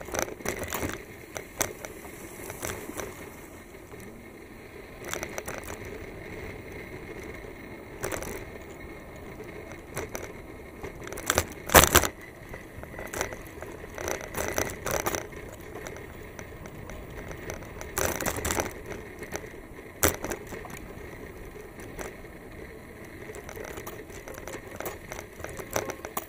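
Bicycle rattling and clattering while ridden over a paved path, over a steady rushing noise. Sharp knocks come every few seconds; the strongest is about twelve seconds in.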